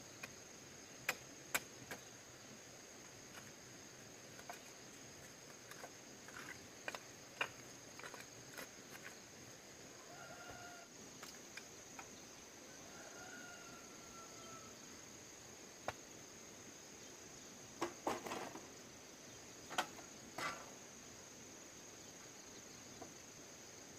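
Steady high-pitched insect drone, with scattered sharp clicks and knocks and a cluster of louder knocks about three quarters of the way through.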